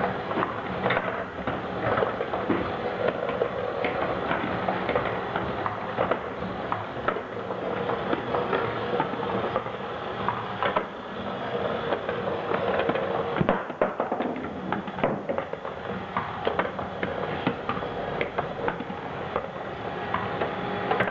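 Small electric motor turning an Archimedes' screw ball lift, with a steady hum under a continuous clatter of small white balls clicking and rattling against the copper strap spiral and the chutes.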